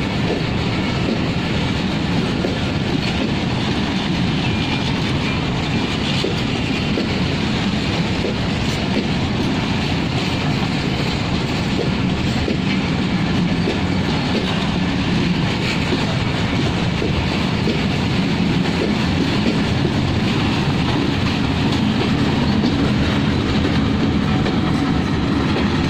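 Passenger express coaches rolling past close by, wheels clattering steadily over the rail joints. Near the end a diesel locomotive's engine adds a deeper sound.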